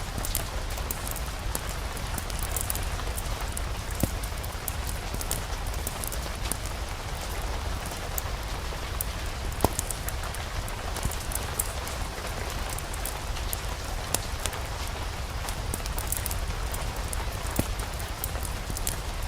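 Steady rain in a relaxation soundscape, with a low rumble underneath and many short, sharp clicks scattered throughout.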